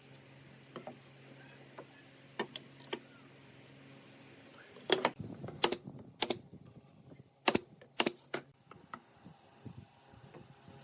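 Sharp wooden knocks and taps: a few light clicks, then about five louder knocks, most about half a second apart, in the middle. A low steady hum fades out about halfway through.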